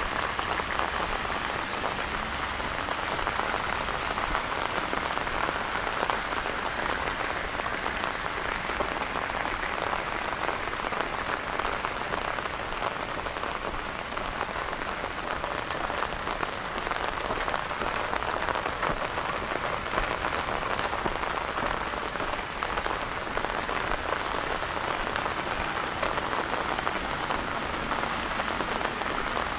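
Steady rain falling, a dense even hiss of many small drops.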